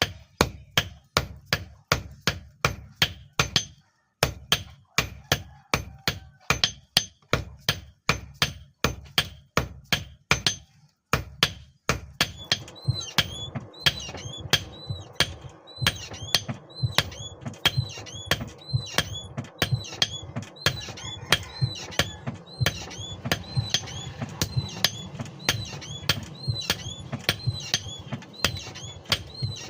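Hand hammer forging a hex nut on an anvil: steady blows at about two to three a second, with short pauses twice. From about halfway a steady background noise joins, and each blow rings with a short metallic tone.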